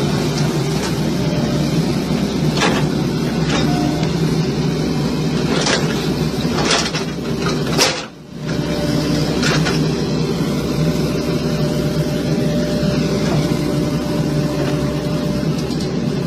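Heavy machinery running steadily, with several sharp knocks or clanks and a brief drop in sound about eight seconds in.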